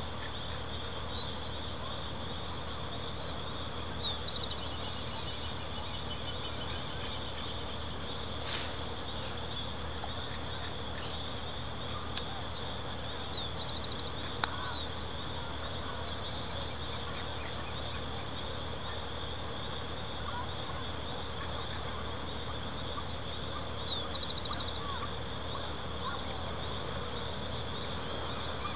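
Steady outdoor background drone with scattered short bird calls and a couple of brief clicks.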